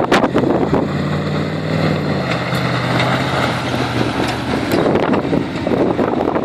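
A 4x4's engine running hard on sand dunes, its pitch easing slightly lower about a third of the way in, with wind buffeting the microphone.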